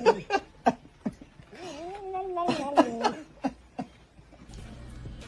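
A cat meowing: one long drawn-out meow that rises and then falls, about a second and a half in, with short sharp clicks around it.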